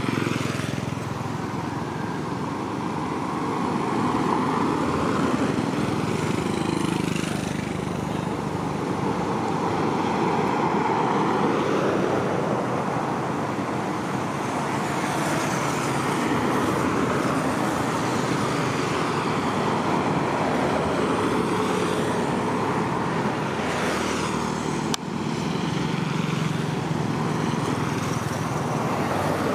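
Road traffic: motorbikes and other vehicles passing one after another, each pass swelling and fading over a constant hum.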